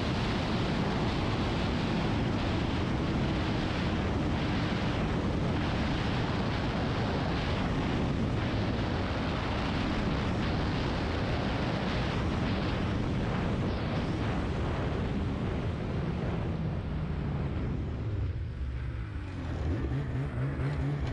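Snowmobile engine running steadily at speed under a dense rushing noise, then quieting and thinning out over the last few seconds as the sled eases off.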